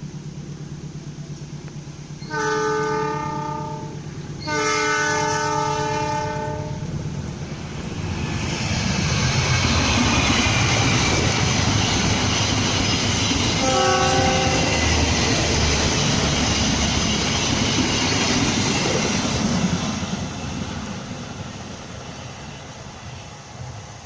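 Passenger train horn sounding two long blasts, then the train passing at speed: a loud rush of wheels and carriages that builds about eight seconds in, with one short horn note in the middle, then fades away.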